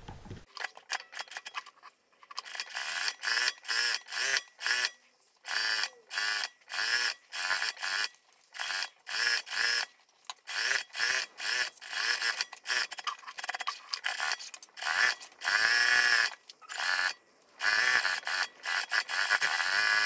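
Industrial single-needle sewing machine top-stitching a folded fabric strap in many short stop-start bursts, its motor pitch rising and falling with each burst. It runs longer and more steadily near the end.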